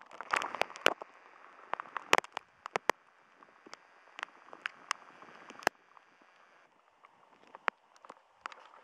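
A graupel shower: soft-hail pellets striking, heard as scattered sharp ticks over a steady hiss of falling precipitation. The ticks are thickest in the first three seconds.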